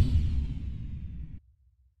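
Tail of a whoosh sound effect with a low rumble under it, fading away and then cutting off abruptly a little past halfway.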